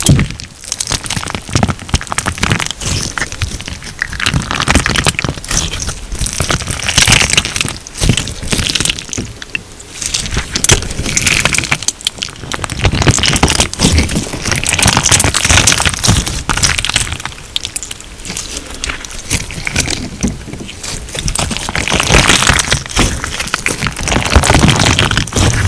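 Crunch slime being squeezed and pressed by hand, giving dense crackling and popping that swells and eases every few seconds.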